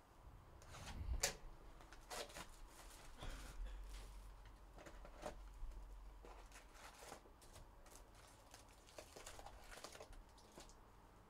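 Faint rustling and clicking of baseball trading cards being handled and flipped, with a sharper snap about a second in.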